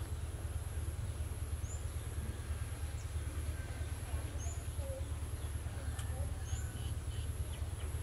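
Steady low background rumble with a thin high whine, and three short high bird chirps about two to three seconds apart.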